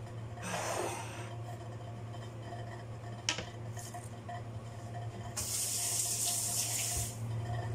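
Kitchen sink tap running: a short rush of water about half a second in, then a steadier stream for about two seconds near the end. A single sharp click just after three seconds in, over a steady low hum.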